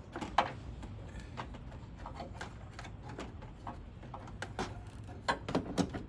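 Irregular clicks and knocks of hands handling a car horn and its plug-in wiring connector behind a car's front grille, with a sharp knock about half a second in and a quick cluster of them near the end.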